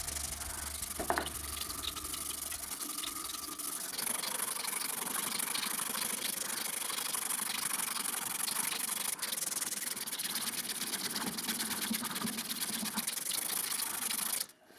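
Steady abrasive sanding of a steel blade. It changes character about four seconds in and stops abruptly near the end.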